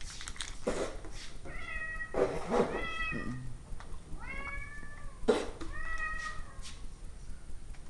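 Domestic cat meowing four times, each meow drawn out, rising at the start and then held. Sharp knocks come between the calls, the loudest about two-thirds of the way through.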